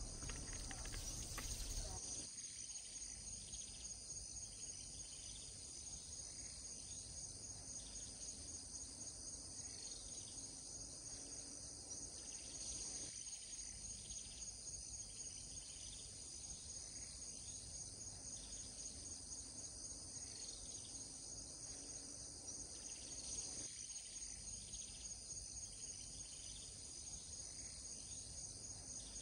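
Faint, steady, high-pitched chorus of insects chirping without a break.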